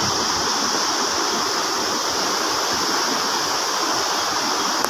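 Flooded river in spate, brown floodwater rushing and churning fast past a concrete riprap wall. A steady, unbroken rushing-water sound.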